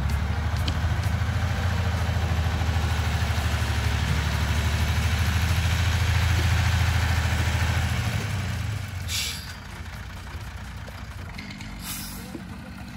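Praga V3S truck's air-cooled six-cylinder diesel engine running loud and steady, then dropping away sharply about eight seconds in as the truck moves off. Two short hisses come about nine seconds in and near the end.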